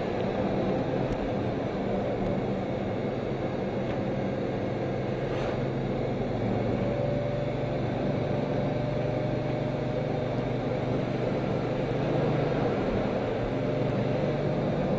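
Bugatti Veyron's quad-turbo W16 engine running steadily under tyre and road noise, heard from inside the cabin while driving.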